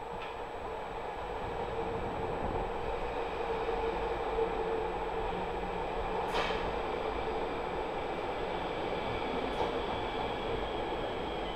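SNCB AM08 (Siemens Desiro ML) electric multiple unit arriving along the platform: a steady rumble of wheels on rail with a steady electric hum, growing louder over the first few seconds as the train draws alongside. Two short, sharp squeaks cut in, about six and about nine and a half seconds in.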